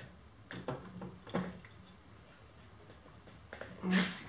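Metal parts clinking and knocking as the milling machine's oil pump is fitted by hand inside its oily casting: a few light knocks in the first second and a half, then a louder knock near the end.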